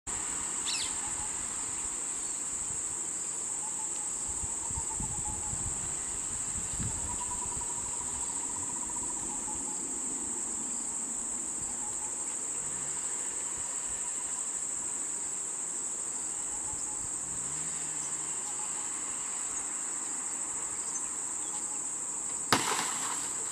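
A steady, high-pitched insect chorus drones without a break. Near the end there is a single sharp knock.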